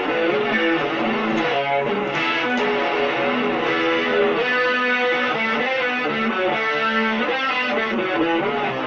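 Guitar music: a melody of short plucked notes that runs on without a break.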